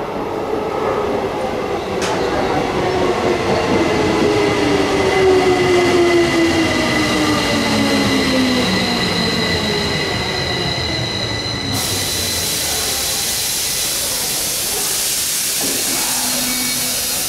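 Renewed Tokyo Metro 05 series train braking into the station, its Toshiba permanent-magnet-motor (PMSM) inverter drive whining in several tones that fall steadily in pitch as it slows, over a steady high tone. About twelve seconds in, a loud hiss of air starts suddenly and keeps going.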